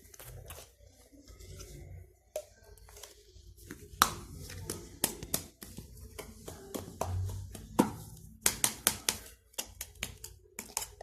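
Hands working at a hard-to-open plastic Play-Doh tub lid: scattered sharp clicks and taps, coming in a quick run of about a dozen a little past the middle.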